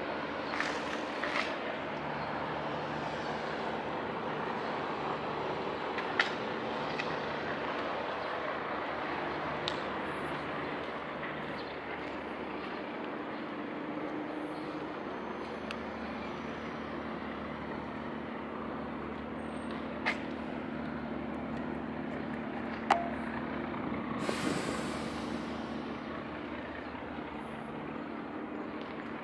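Steady low drone of distant engines, with a few sharp clicks and a brief rush of noise about three-quarters of the way through.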